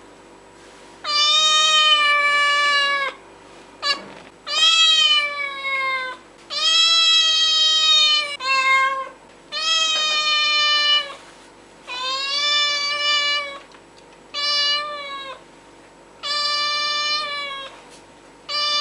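Domestic cat meowing over and over: about ten drawn-out meows, most one to two seconds long, each tailing off downward in pitch, with brief pauses between them.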